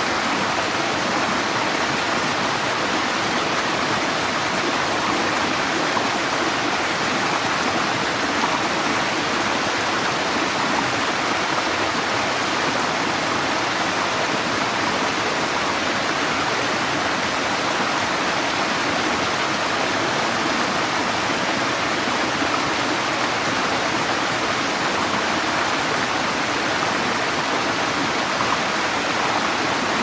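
Small woodland waterfall cascading over rocks into a creek: water running and splashing at a steady level, with no other sound standing out.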